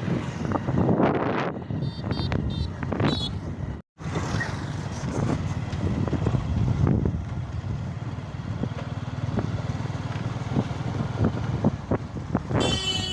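Vehicle running in traffic with steady road rumble, and short high beeps about two to three seconds in. The sound cuts out briefly just before four seconds in.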